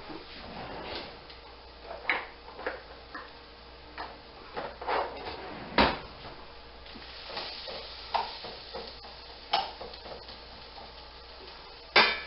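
Scattered clicks and knocks of a spatula being handled and then stirring onions in a stainless steel skillet, with sharp knocks about six seconds in and again near the end.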